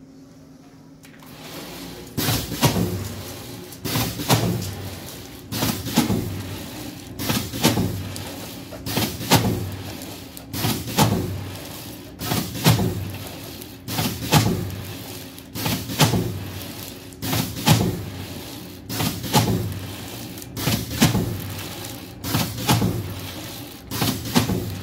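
Hookah aluminium foil rewinding machine running in repeated cycles: a sharp mechanical clack followed by a fading rumble of the rollers, about once every 1.7 seconds, starting about two seconds in.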